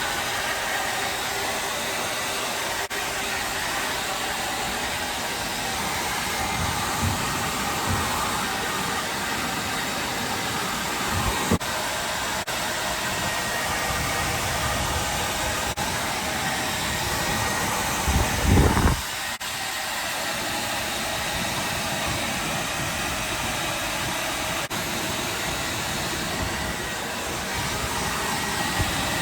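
Hair dryer blowing steadily, with a brief louder low rumble about two-thirds of the way through.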